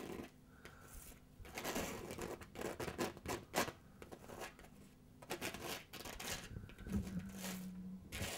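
Irregular scratching and rubbing strokes of a painting tool working paint on a canvas.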